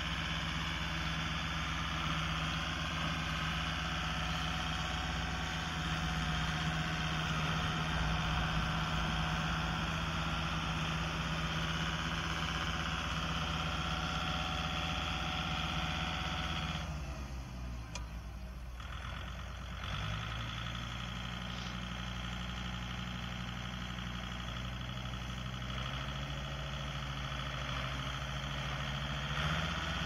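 Kubota L3750 tractor's diesel engine running steadily under load while pushing loose hay with a front-loader hay sweep. A little past halfway it drops in pitch as it is throttled back, runs on at the lower speed, and picks up again near the end.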